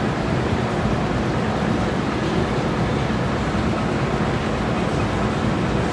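Steady outdoor street noise: a continuous rumble and hiss with no distinct events, like traffic and wind heard on a phone microphone.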